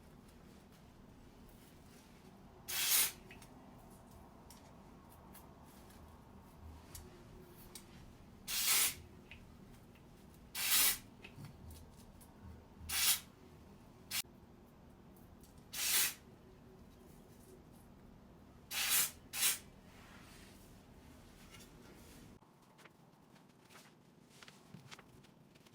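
Lace melting spray squirted onto a wig's lace in seven short hissing bursts, spaced a few seconds apart, with the last two close together.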